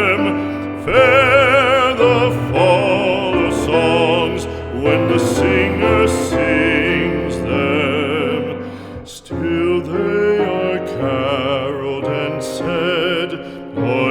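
Background music with an operatic singing voice holding long notes with strong vibrato over an accompaniment, with a short break a little after the middle.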